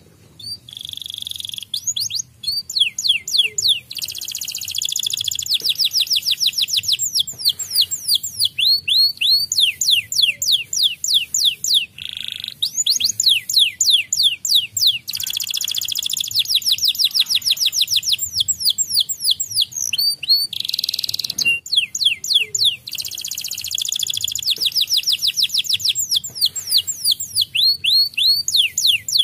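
White domestic canary singing a long song of fast trills, each built from rapidly repeated notes, mixed with buzzy rolls. The phrases change every second or two, with a few short breaks between them.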